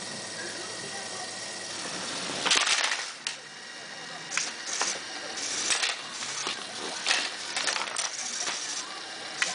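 Lego Power Functions motor and spinning blade running with a steady whine, then about two and a half seconds in a loud crash as the blade smashes into a Lego brick tree and minifigures, followed by a run of sharp plastic clacks and rattles as the pieces are knocked about.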